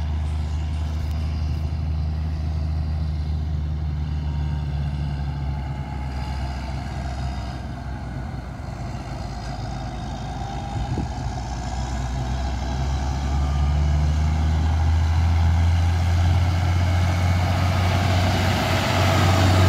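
Diesel engine of a John Deere tractor towing a trailer, running steadily with a low hum and growing louder in the second half as the tractor approaches and comes close by.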